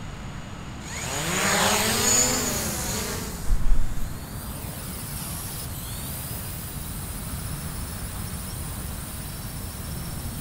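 A motor passing by, its pitch rising and then falling over a couple of seconds, followed by a short loud thump. After that a faint, steady high whine runs on.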